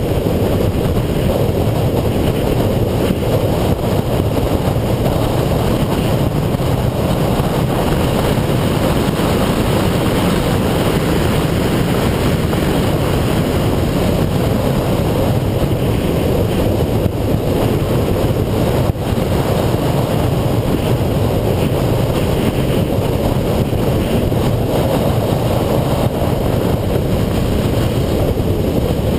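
Steady in-car noise from a 2008 Subaru Impreza 2.5i at speed on track: its 2.5-litre flat-four engine under a dense wash of road and wind noise, with no clear rise or fall in engine pitch.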